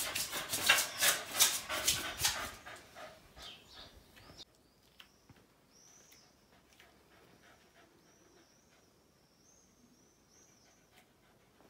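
A dog panting hard and fast right by the microphone, about four or five breaths a second, for the first two or three seconds; it fades out by about four seconds in. Faint bird chirps follow.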